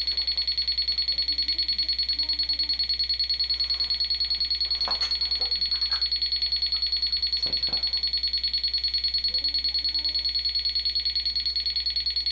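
Electronic alarm from a ghost-hunting detector sounding continuously: a high electronic tone that pulses rapidly and evenly. A few faint clicks fall in the middle.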